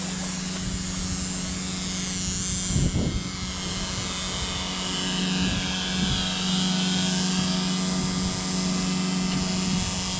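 Shrimp-pond paddlewheel aerators running: a steady motor hum over a hiss of churned water. A brief knock of handling about three seconds in.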